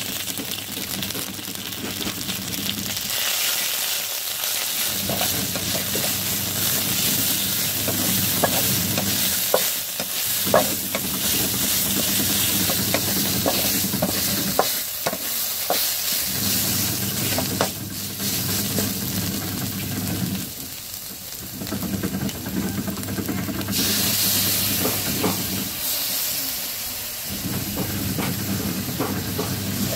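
Spice paste sizzling as it fries in oil in a metal pan, while a wooden spatula stirs and scrapes it, with scattered taps of the spatula on the pan.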